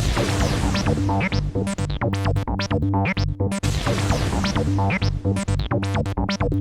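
Electronic background music with synthesizer chords and a steady beat.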